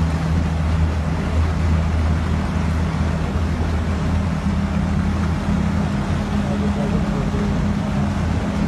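A steady, unchanging engine drone with a constant rushing noise over it, as from a vehicle moving through wet streets.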